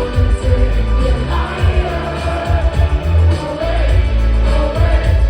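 Live pop band performance with a female singer, bass and drums, recorded from the audience at loud volume.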